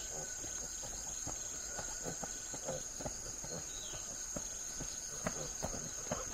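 A steady high-pitched drone of insects, with many light clicks and knocks scattered throughout.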